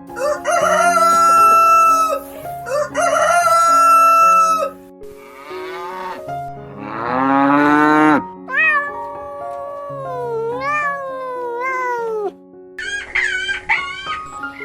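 A run of farm-animal calls over background music: two long calls in the first few seconds, then several shorter calls whose pitch falls away.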